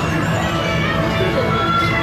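Music from a dark ride's soundtrack, with some held notes and voices mixed in.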